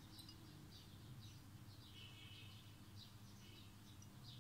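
Near silence: faint room tone with a low hum and faint, scattered bird chirps.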